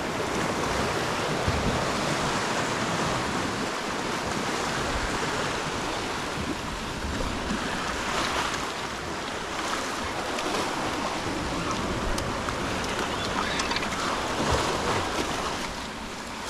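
Ocean surf washing steadily against the shore, with wind gusting on the microphone.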